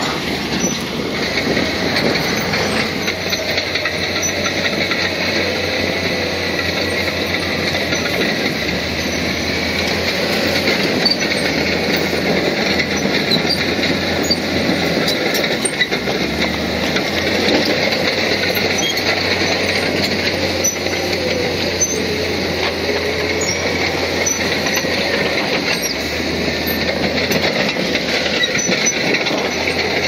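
Crawler bulldozer at work: its diesel engine and steel tracks running in a steady mechanical din.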